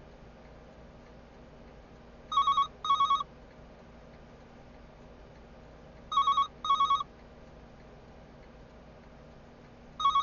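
Corded desk telephone with a caller-ID display ringing for an incoming call: an electronic trill ring in double rings about four seconds apart, three times, the third coming at the very end.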